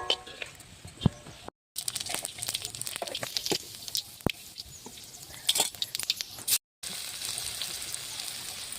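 Bitter gourd slices frying in hot oil: a steady sizzle full of crackles, with the clicks of a utensil stirring in the pan. The sizzle is broken twice by a brief silent gap.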